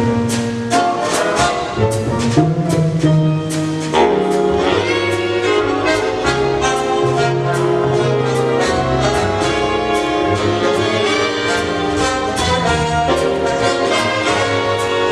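Big band playing jazz: brass and saxophone sections hold notes over the drum kit, whose regular cymbal and drum strokes keep a steady beat.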